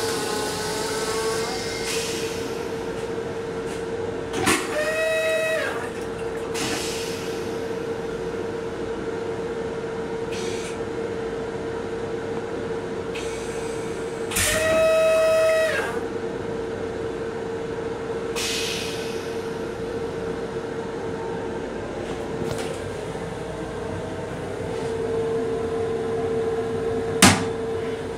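Steady hum inside a Metro-North M7 electric railcar, with two brief pitched tones about ten seconds apart and a sharp click near the end.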